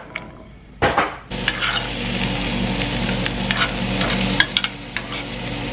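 Diced sweet potato tipped into a hot frying pan with a thump about a second in, then sizzling steadily while a spoon stirs through the pieces, clicking and scraping against the pan.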